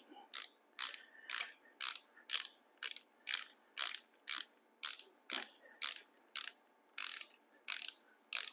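Ratchet head of a click-type torque wrench clicking about twice a second as the handle is swung back and forth, running down the small hollow banjo bolt of a piston oil squirter in an engine block.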